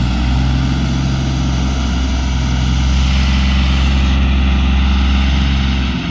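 An engine running steadily at a constant speed, a loud low hum that cuts off about six seconds in.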